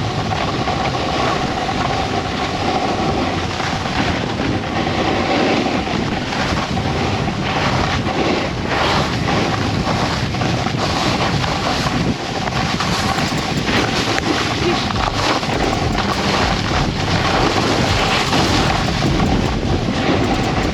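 Wind rushing over the microphone on a fast snowboard run, mixed with the board sliding and scraping over the snow in short irregular chatters.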